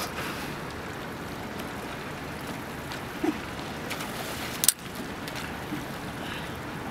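Steady lapping and trickling of river water, with one sharp slap at the surface about two-thirds of the way in as a small tarpon strikes a live mullet bait.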